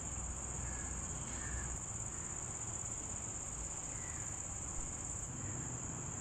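Steady high-pitched drone of insects in the trees, with a few faint bird calls.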